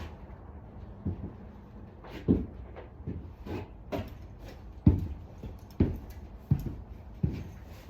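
Irregular knocks and clunks from hands working with tools and materials, roughly one or two a second, some with a brief scratchy rattle.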